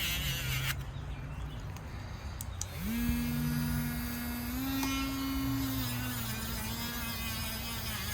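Small electric power tool motor whining briefly early on, then switched on again about three seconds in. Its pitch rises quickly as it spins up and then holds at a steady high hum.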